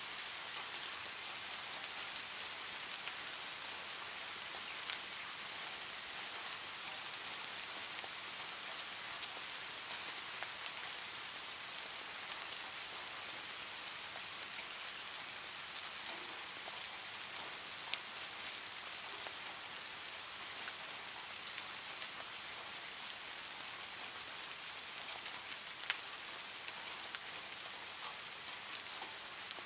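Heavy rain drumming steadily on a tin roof, an even hiss with a few louder single drop ticks standing out, the sharpest about three quarters of the way through.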